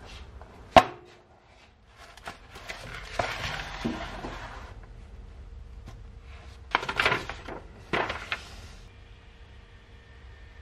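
A paper notebook being handled and its pages turned: a sharp knock just under a second in, rustling of paper a few seconds later, then two short loud page flips about a second apart.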